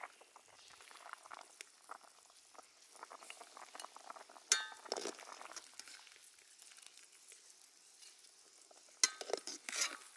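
Pig feet boiling in broth in a stainless steel wok, with a steady fine bubbling, while a metal ladle and a slotted skimmer scoop pieces out, clinking against the pan about four and a half seconds in and several times near the end.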